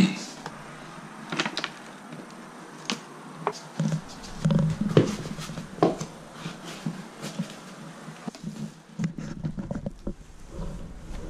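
Handheld camera handling noise: rustling, with scattered sharp clicks and knocks and a few dull thuds about four to six seconds in, as someone moves about a small room.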